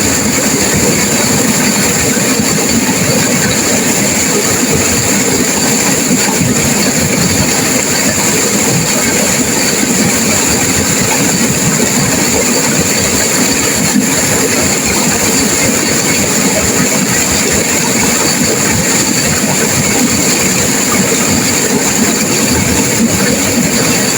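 Turbulent river water crashing and rushing, a loud, steady, unbroken noise.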